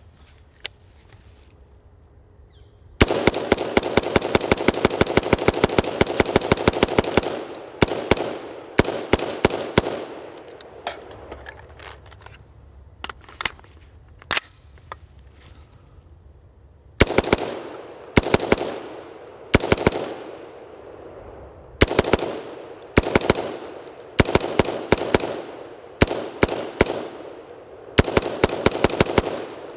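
BCM AR-15 rifle in 5.56 firing rapid semi-automatic strings. A lone shot comes first, then a long fast run of about seven shots a second, then short quick strings of four to six shots with brief pauses and a few single shots between. The rifle is firing dry, unlubricated since its first lube and never cleaned, in a torture test.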